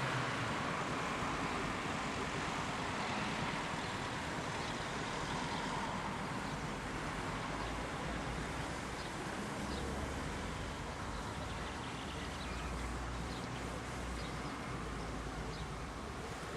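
Outdoor wind noise and a low rumble. A faint steady tone fades away over the first few seconds, and faint bird chirps come in from about nine seconds in.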